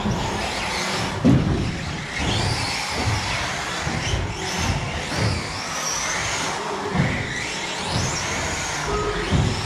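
Radio-controlled race car heard from its onboard camera as it drives a track. Its motor whine rises and falls as it speeds up and slows, over rumble and knocks from the chassis, with one sharp knock just over a second in.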